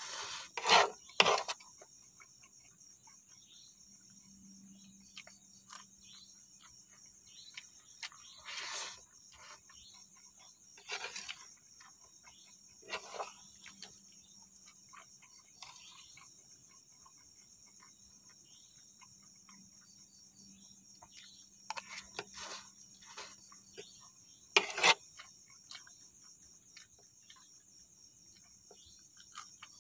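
Crickets chirring steadily in the background, with scattered eating noises as instant noodles are slurped and chewed. The eating sounds come in short bursts, a cluster near the start and others spread through, with a louder one near the end.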